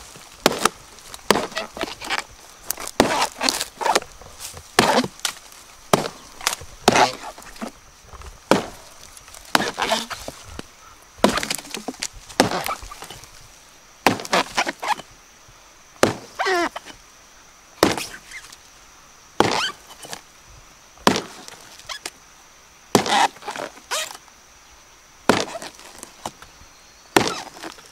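A blade chopping over and over into a rotten palm trunk, sharp strikes roughly one or two a second with wood splitting and splintering.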